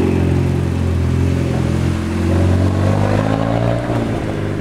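A motor vehicle's engine running loudly close by, a low steady hum whose pitch dips slightly about three to four seconds in.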